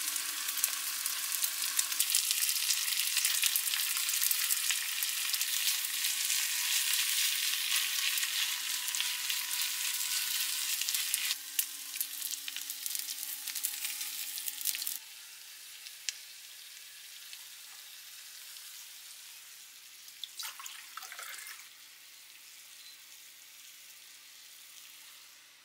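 Egg frying in a hot pan: a steady sizzle with crackling, which drops off about eleven seconds in and stops abruptly at about fifteen seconds, leaving only faint, quieter sounds with a few light knocks.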